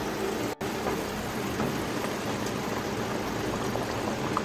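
Mustard-paste gravy boiling in a wok: a steady bubbling hiss, which cuts out briefly about half a second in.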